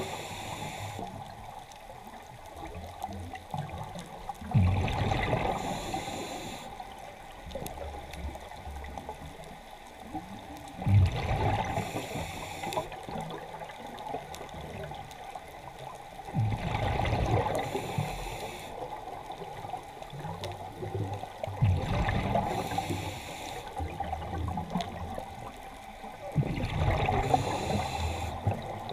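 Scuba diver breathing through a regulator, heard underwater: five breaths, each a burst of exhaled bubbles with a short hiss from the regulator, about every five to six seconds.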